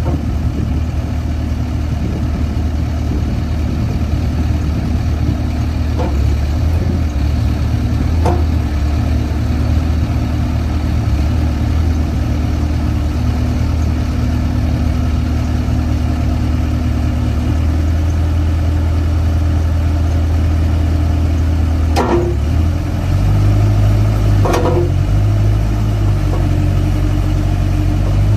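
A Case 580M Series 2 loader backhoe's 80 hp Case diesel engine running steadily, with a few sharp metallic knocks. Near the end the engine note shifts higher.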